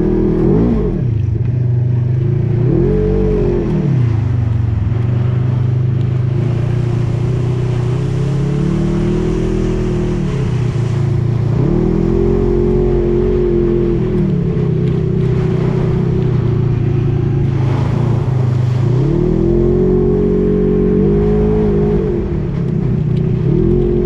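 Off-road vehicle engine heard close up from the vehicle itself while driving through mud, its pitch rising and falling several times as the throttle is opened and eased off.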